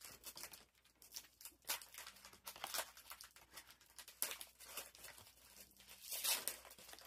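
Foil trading-card booster pack crinkling and tearing as it is opened, then the cards inside slid out and handled: a run of short rustles and crackles, the loudest about six seconds in.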